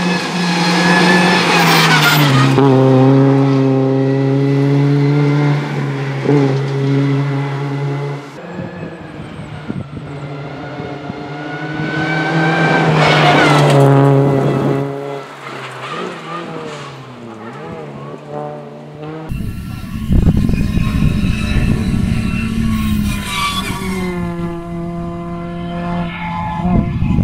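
Honda Civic FN2 rally car's 2.0-litre four-cylinder engine at high revs on a tarmac stage, sounding in three separate passes: the note holds steady for several seconds, slides in pitch as the car goes by, then comes back. A heavy low rumble sits under the engine in the last third.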